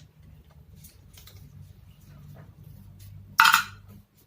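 Plastic packaging and small fingerboard parts being handled, light clicks and rustles, with one short loud crackle of plastic about three and a half seconds in.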